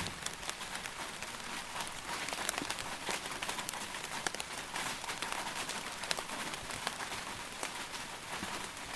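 Steady rain, with many separate drops ticking sharply on a surface. No thunder is heard.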